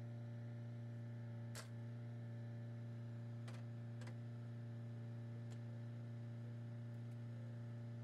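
Faint steady low hum, unchanging throughout, with a few faint sharp clicks about one and a half, three and a half, four and five and a half seconds in.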